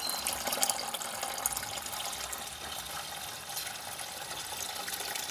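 Cloudy wash water poured steadily from one plastic bucket into another, decanted off the sand and cement that has settled at the bottom.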